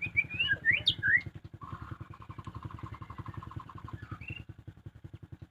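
White-rumped shama singing: a quick run of whistled notes sweeping up and down in the first second or so, then a rapid even rattle lasting about two seconds, and one more short whistle near the end. Underneath, a small engine idles with a steady low throb of about ten pulses a second.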